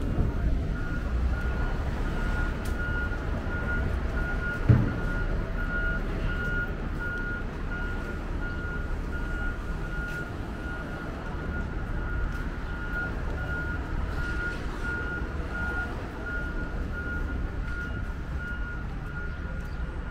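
A vehicle's reversing alarm beeping at one steady pitch, evenly repeated, over the low rumble of traffic and buses. A single thump comes about five seconds in.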